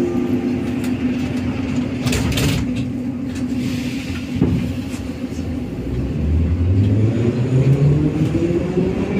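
Metro car doors closing, a short noisy burst about two seconds in, then the train pulling away with its traction motors starting a rising whine from about six seconds on.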